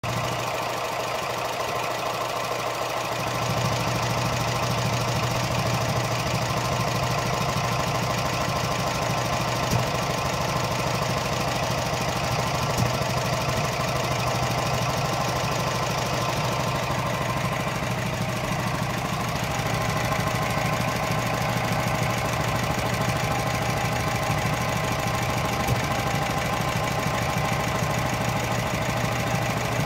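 Norman T300 stationary engine running steadily, with a slight rise in level a few seconds in.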